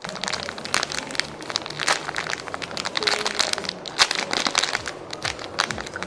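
Clear plastic packaging bag crinkling as a penguin squishy toy is squeezed inside it with the fingers: many sharp, irregular crackles.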